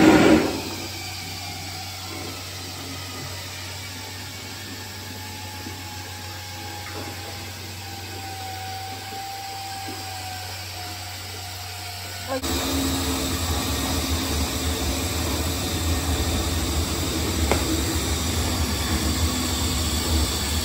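Electric drill turning a paddle mixer in a stainless-steel vat of calf milk replacer, running steadily while acid is poured in to acidify the milk. A brief loud burst comes right at the start, and about twelve seconds in the drill gets suddenly louder and rougher.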